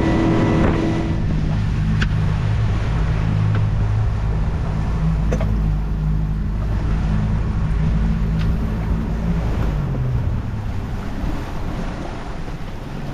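Boat engine running steadily under way, then throttled back, its hum dropping in pitch and fading about ten seconds in. Wind buffets the microphone and water rushes past the hull throughout.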